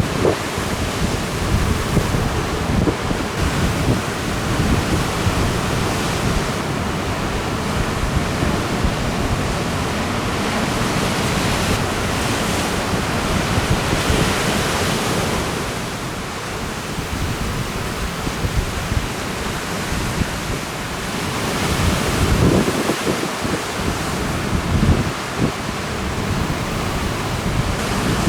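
Wind buffeting the camera microphone over the wash of breaking ocean surf. The gusts hit hardest in the first few seconds and again late on, and a louder wash of surf swells up midway.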